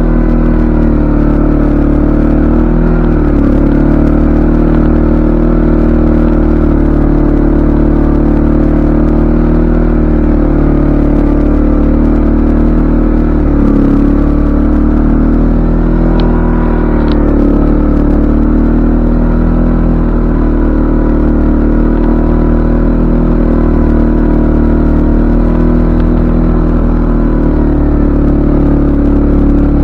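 CFMoto ATV engine running steadily while being ridden, its pitch rising and falling slightly with the throttle.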